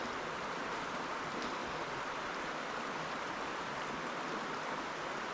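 Steady rushing of a mountain trout stream flowing over rocks.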